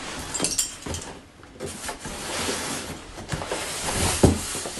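Cardboard shipping box being handled and scraped open, with a small metallic clink about half a second in and a few knocks.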